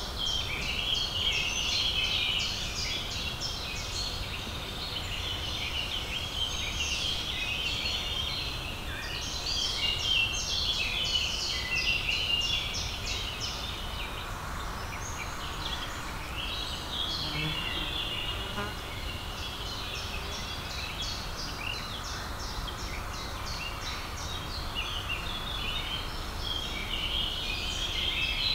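Spring woodland birdsong: several small birds singing at once, with rapid trills and chirps that go on without a break, over a low steady background rumble.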